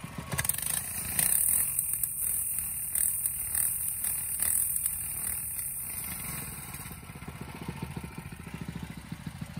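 Coleman CC100X minibike's small single-cylinder engine revved hard with the rear wheel held up, spinning the flat, holed tubeless rear tire against concrete with a scrubbing hiss and clatter. About seven seconds in the revs drop and the engine settles to an even idle.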